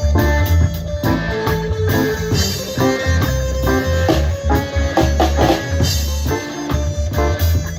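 A live band playing a song at a sound check: guitar and drum kit over a deep, steady bass line.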